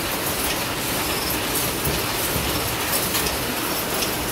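Power loom weaving korai grass sleeping mats, running steadily with continuous mechanical noise from its moving parts.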